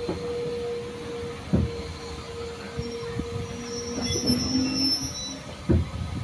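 Railway carriage wheels rolling slowly along the track, with a steady wheel squeal that fades out about four seconds in, and two sharp knocks from the wheels on the rails, one about a second and a half in and a louder one near the end.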